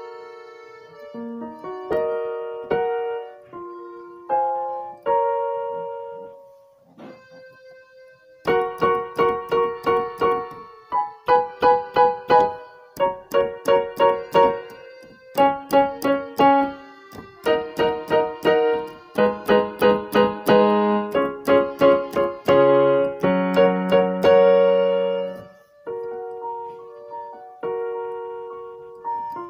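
Background piano music: a slow, sparse melody, then from about a third of the way in a busier passage of quick repeated notes and chords, easing back to a sparser line near the end.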